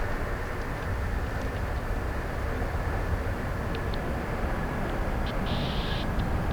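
Steady rumble of jet aircraft noise at an airport, with a few faint high ticks and a short high hiss about five and a half seconds in.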